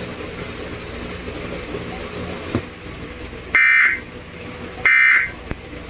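Three short bursts of Emergency Alert System digital data tones (SAME), each a buzzy warble about half a second long, spaced a little over a second apart and starting about three and a half seconds in, over a low steady hum.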